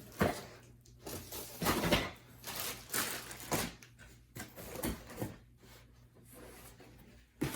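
Handling noises from an unboxing: a series of short, irregular rustles and light knocks of packaging and hive parts being moved about, over a faint low hum.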